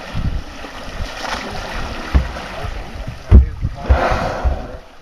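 Wind buffeting the microphone in uneven gusts, the strongest a little past halfway, over the hiss and wash of sea water alongside a boat.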